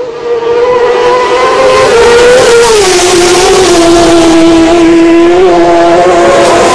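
Racing superbike engine at high revs, very loud, with its pitch falling about two and a half seconds in.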